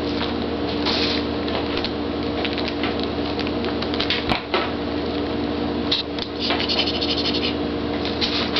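Kittens' claws scratching and catching on denim jeans as they climb over a lap: many small scratchy rustles over a steady background hum, with one sharp click about four seconds in.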